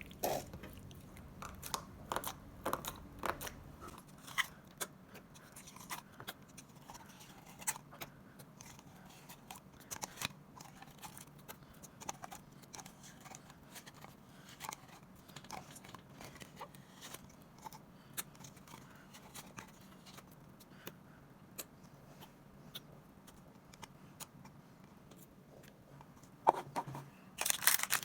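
Slime being squished and kneaded by hand, giving irregular small wet clicks and pops, with a louder crackly burst near the end.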